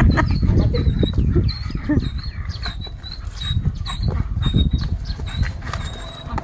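A frightened dog crying out as it scrambles on dirt ground, set upon by a swinging stuffed tiger toy.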